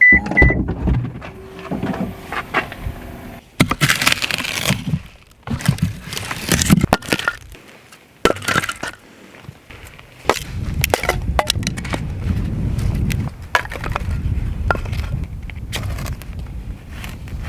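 A series of sharp cracks, snaps and knocks, like wood being broken and handled, with noisy rustling between them and a steadier low rumble in the second half.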